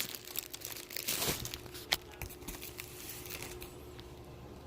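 Packaging crinkling and rustling as clothes are pulled out of a box, with a couple of sharp clicks between one and two seconds in. It settles to quieter handling noise in the second half.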